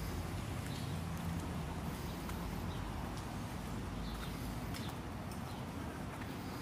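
Street ambience: footsteps on a paved sidewalk over a low, steady hum of traffic, with faint short ticks.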